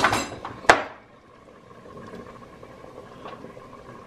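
Chopped carrots and celery scraped off a plastic cutting board and dropping into a pot of soup, with one sharp knock under a second in. After that it goes quieter, with a faint steady background and a single light click.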